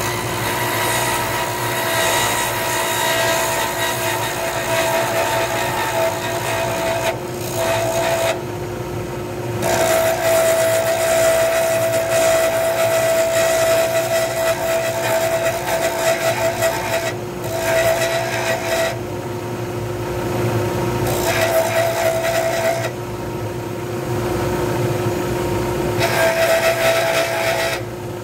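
Wood lathe motor running steadily while a hand-held turning tool cuts a wooden pen blank, a rough scraping of shavings coming off. The cutting stops and starts several times as the tool is lifted off the spinning blank and brought back, leaving the lathe's steady hum in the pauses.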